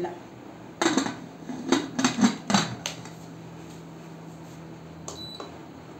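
Aluminium pressure cooker being closed: a quick series of metal knocks and clanks as the lid is fitted and the whistle weight set on the vent. A couple of light clicks near the end as the gas stove is switched on.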